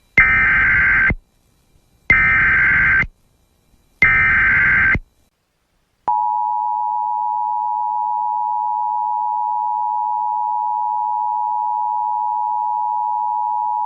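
Emergency Alert System signal. First come three SAME header bursts of digital data tones, each about a second long and spaced a second apart. About six seconds in, the EAS two-tone attention signal starts and holds steady for about eight seconds, opening an emergency alert broadcast.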